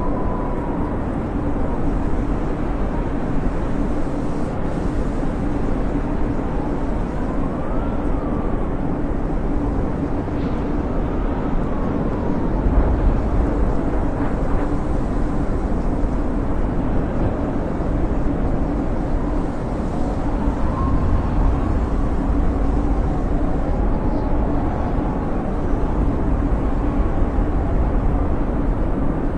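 Snowstorm wind blowing steadily, with a deep rumble that swells in gusts and thin whistling tones that slowly rise and fall.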